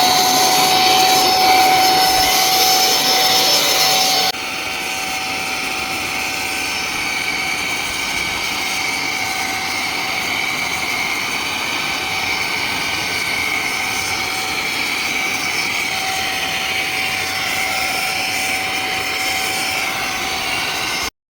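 Bosch BS-925 dry vacuum cleaner running steadily, a loud whooshing motor noise with a high whine. The sound drops to a softer level about four seconds in and cuts off suddenly at the end.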